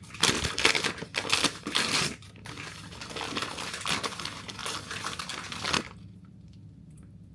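Blind-box toy packaging being crinkled and rustled by hand as it is opened, loudest in the first two seconds, then softer rustling that stops about six seconds in.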